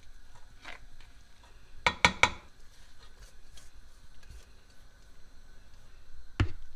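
Serving spoon and stainless-steel colander clinking against a cooking pot while par-boiled rice and lentils are transferred into it. Three quick knocks about two seconds in are the loudest, with one more sharp knock near the end.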